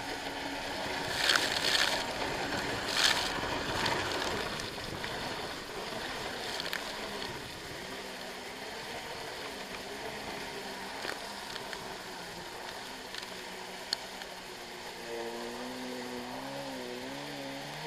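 Kawasaki X2 stand-up jet ski's two-stroke engine running under way, with rushing spray and wind noise. Two loud rushes of water come in the first few seconds. Near the end the engine note rises and falls as the throttle is worked.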